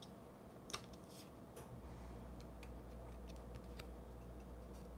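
Near-quiet room with a few faint, scattered light ticks from handling small punched cardstock pieces.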